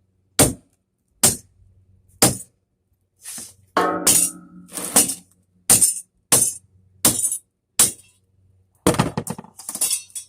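Repeated sharp metal strikes, about one a second, knocking a brass doorknob assembly off a door, with a metallic ring after one blow about four seconds in and a quick rattle of loose metal parts near the end.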